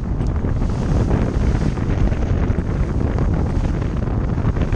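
Strong wind buffeting the microphone over the rush and splash of water along the hull of a small sailboat sailing hard upwind through a short, choppy sea in about 20 knots of wind. A steady, loud noise.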